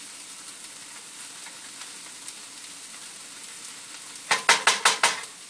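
Frozen diced peppers and onions sizzling steadily in a very hot nonstick frying pan as they are stirred. Near the end, a quick run of about six sharp knocks as the spatula strikes and scrapes the pan.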